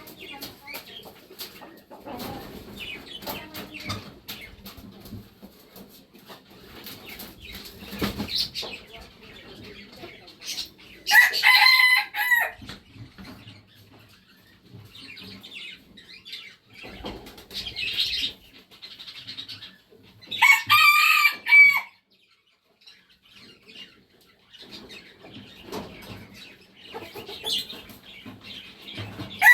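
Red junglefowl rooster crowing twice, about eleven and twenty seconds in, each a short, loud crow, with softer clucking and scratchy noises between the crows. A third crow begins at the very end.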